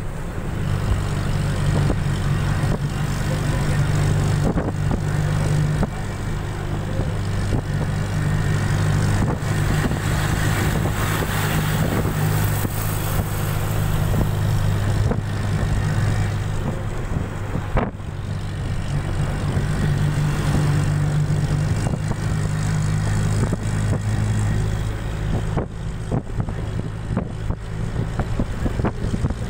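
Bus engine running with a steady low hum, with road and wind noise, heard from inside the moving bus. There is a single sharp click about eighteen seconds in.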